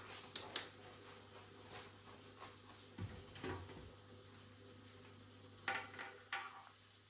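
Kitchen cabinet being handled: a few sharp clicks and knocks, with a dull thump about three seconds in as the lower cupboard door under the sink swings open, and three more light clicks near the end. A faint steady hum runs underneath.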